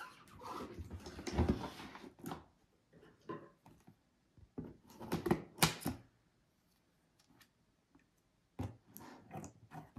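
Cardboard toy box being handled on a wooden tabletop: rustling and sliding in the first couple of seconds, a few sharp knocks around five seconds in as the box is set down and flipped, then light clicks and taps near the end.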